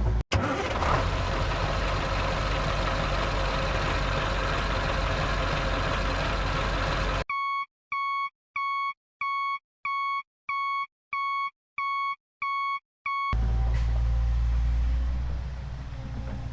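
A vehicle engine runs as a steady rumble. About seven seconds in it cuts to a reversing beeper: a clean electronic beep repeated about ten times, a little under two a second, with silence between beeps. Near the end the engine rumble returns.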